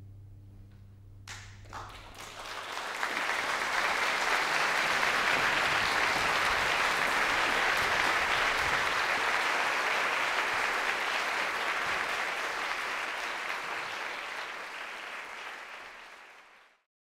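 The last orchestral chord dies away, and audience applause breaks in about a second in, swells quickly, holds steady, then thins and cuts off abruptly near the end.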